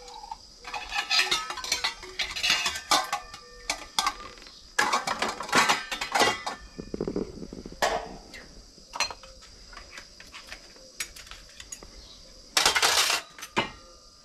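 Glasses and dishes clinking and clattering as they are handled and set down, in repeated short bouts, with a louder clatter near the end.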